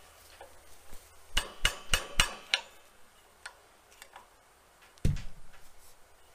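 Metal wrench clinking and clicking against the brass regulator nut and cylinder valve, a run of sharp taps about three a second, while the leaking regulator-to-cylinder connection is being tightened. A single heavier thump about five seconds in.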